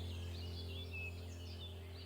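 Many small birds chirping and twittering at once in quick overlapping calls, over a low steady tone that fades slowly.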